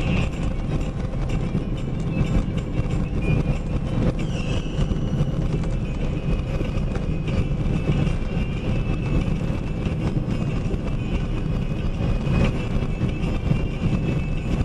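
Box truck under way: a steady low rumble of engine and road noise.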